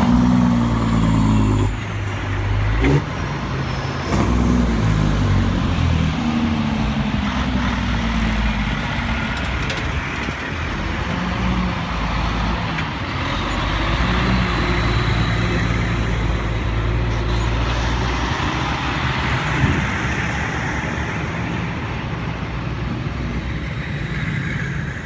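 Heavy diesel trucks driving past one after another: a semi tractor hauling a bulk tanker trailer, then a tri-axle dump truck, then pickup trucks. The engine pitch steps and glides as they go by, over the hiss of the tyres, with a couple of short knocks.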